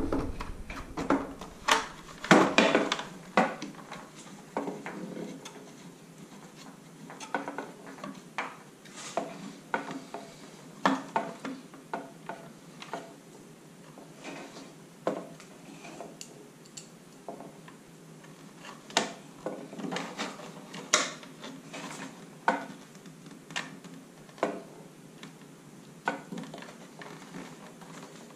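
Irregular clinks and knocks of small metal parts and hand tools being handled, sometimes several in quick succession.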